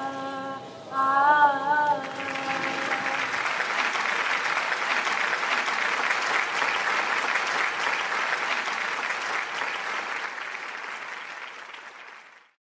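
A held sung phrase ends about two seconds in, then an audience applauds steadily, the clapping slowly fading out and stopping just before the end.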